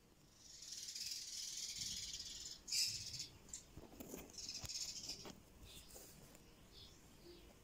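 Peach-faced lovebird chattering: harsh, hissy, high-pitched calls in bursts, the loudest a little under three seconds in.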